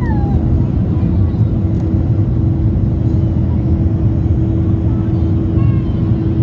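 Airliner cabin noise of a Boeing 737-800 climbing out just after take-off: its CFM56-7B turbofans at climb thrust give a steady roar with a constant hum running through it.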